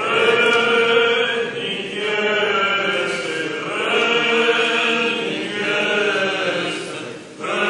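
Orthodox liturgical chant: voices singing long held notes in slow phrases, with short breaks about two seconds in and near the end.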